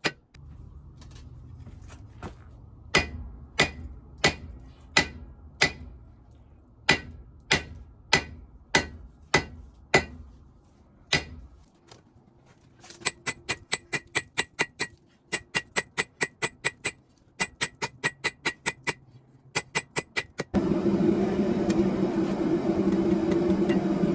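Hammer blows ringing on hot steel and anvil, about one and a half a second over a low rumble, then faster runs of lighter ringing strikes, about four a second. About twenty seconds in, a steady machine hum with a low drone starts.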